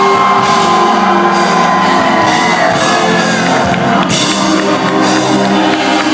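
Live rock band playing loudly in a large hall, with drums and guitar under held notes and gliding pitched lines.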